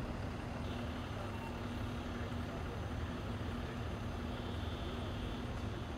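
Steady low rumble of an idling vehicle engine, with a steady hum that drops away about four and a half seconds in.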